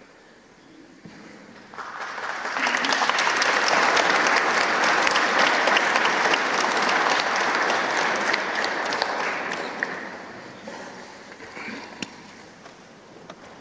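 Audience applause after a performance ends. It starts about two seconds in, builds quickly to a full round of clapping, holds for several seconds, then dies away near the end.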